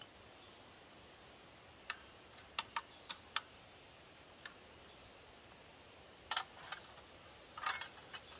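A series of short, sharp clicks and light knocks, about ten spread unevenly, from a Birchwood Casey clay pigeon launcher being handled and loaded. Faint, steady insect chirping runs behind.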